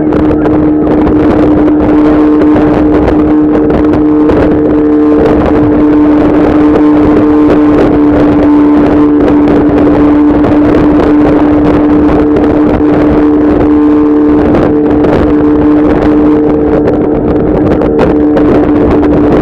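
Motorboat's outboard engine running at steady throttle, its drone holding one pitch throughout, with the rush of wind and water over it.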